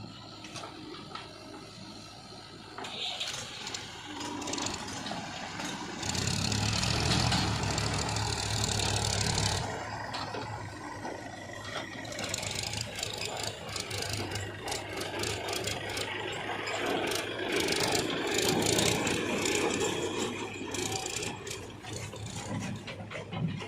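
Diesel engine of a JCB 3DX backhoe loader running under load while loading mud, louder for about three seconds a quarter of the way in, with repeated rattling and clanking through the second half.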